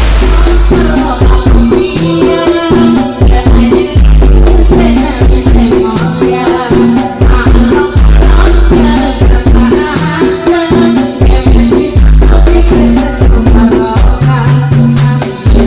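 Loud DJ dance music from a large carnival sound system, with heavy sub-bass and shaker-like percussion over a steady beat. Long deep bass notes hit roughly every four seconds.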